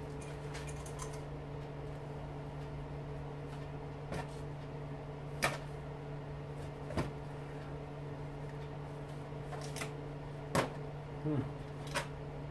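A handful of short, sharp clicks and knocks, a few seconds apart, as small motor parts and a cable are handled at a workbench, over a steady low hum.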